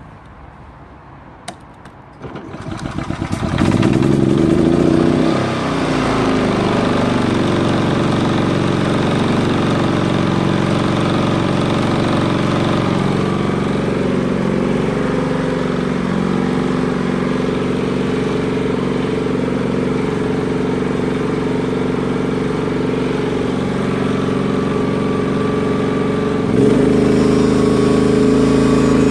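Hyundai HY3200SEi inverter petrol generator starting about two seconds in, running fast for a moment, then settling into a steady running note. Near the end the engine note steps up, louder and higher.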